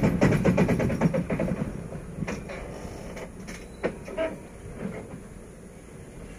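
Freight train rolling away and slowing, its wheels clattering rhythmically over the rail joints and fading over the first couple of seconds. After that, a few separate clanks and a short squeak are heard as the train draws to a stop.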